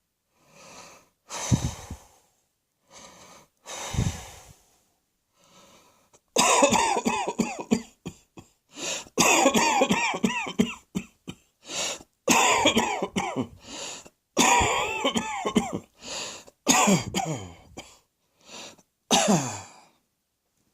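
A person coughing. There are a few short single coughs and breaths in the first six seconds, then from about six seconds in, long runs of hoarse, voiced hacking coughs with brief gaps between them, which stop shortly before the end.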